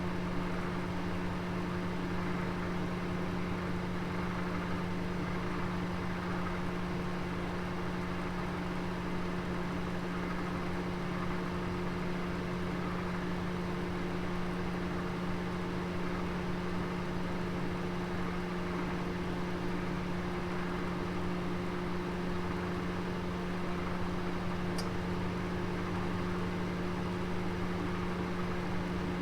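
Oven running with a roast inside: a steady, even hum with a low drone, with one faint brief tick near the end.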